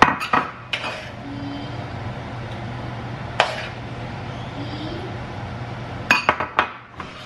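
A metal spoon clinking and knocking against a cooking pan and ceramic bowls as food is dished out. There are a few sharp clinks near the start, one about three seconds in, and a quick run of clinks near the end, over a steady low hum.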